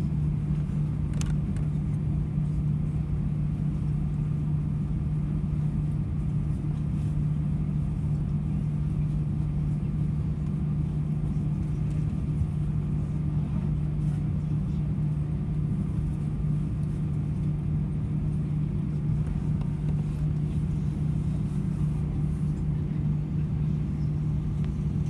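Cabin noise inside an Airbus A320-232 taxiing after landing: a steady low drone with a strong constant hum, from the engines at taxi power and the cabin air system.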